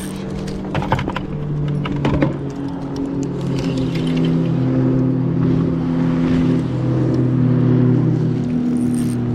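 A motor running steadily, its pitch drifting slightly up and down, with a couple of sharp knocks about one and two seconds in.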